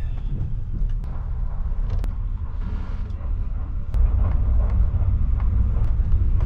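Kintetsu Hinotori limited express train running, heard inside the passenger cabin: a steady low rumble that grows louder about four seconds in, with a few short sharp clicks.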